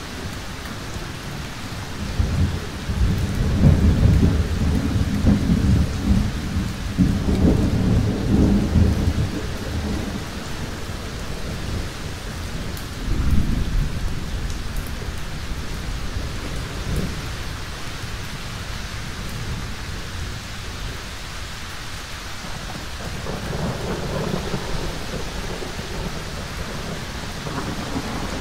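Thunderstorm with steady heavy rain throughout. Long low rolls of thunder rumble from about two seconds in until about ten, a shorter clap comes near the middle, and another roll comes late on.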